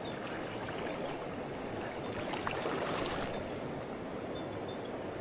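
A river's water flowing and rushing over rocks, a steady hiss that swells louder for a second or so about halfway through.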